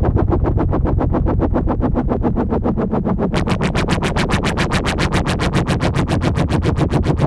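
Electronic music: synthesizer pulsing at a fast, even rate over a low bass, with a bright, hissing pulse joining in the high end about three seconds in.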